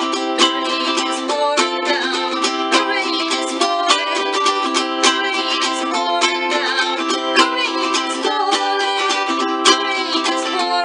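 Ukulele strummed in a steady rhythm of chords, with several quick strokes a second.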